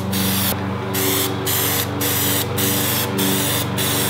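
Aerosol can of Plasti Dip rubberized coating spraying a coat onto a car grille in sweeping passes. The hiss breaks off briefly about every half second between passes.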